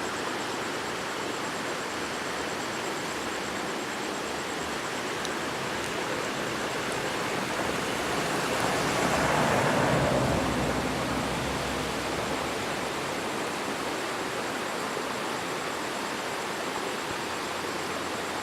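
Steady rush of a large waterfall, swelling louder about halfway through and then easing back.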